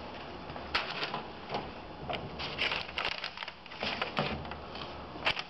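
Scattered light clicks and knocks of handling as a partly dismantled oil burner's metal body is picked up and turned by hand.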